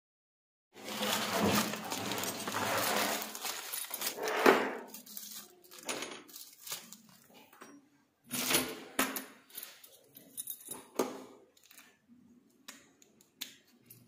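A small metal drawer lock and its keys handled by hand: a few seconds of continuous rustling and scraping, then scattered sharp metallic clicks and key rattles as a key is fitted into the lock cylinder.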